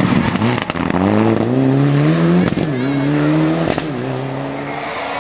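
Mitsubishi Lancer Evolution IX rally car's turbocharged four-cylinder accelerating hard away from a corner, the engine note rising and dropping back through three upshifts. Sharp pops come at the gear changes, and the engine fades as the car pulls away.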